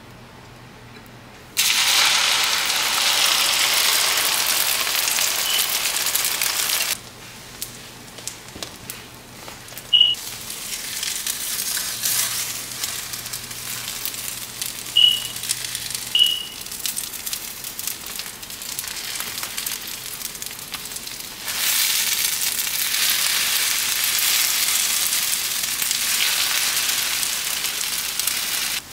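Egg frying in hot oil in a non-stick pan: a steady sizzle that starts suddenly about a second and a half in, falls quieter around seven seconds in, then grows loud again after about twenty seconds.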